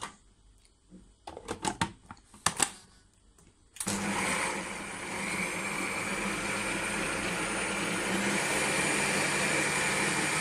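A few short knocks and clicks, then about four seconds in a Kenwood food processor's motor starts and runs steadily on a medium speed (third setting), churning the butter in cold water so that it separates from the buttermilk.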